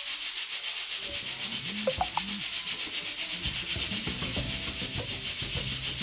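Stovetop pressure cooker whistling: steam venting past its weighted whistle valve in a steady, fluttering hiss, the sign that it has come up to full pressure.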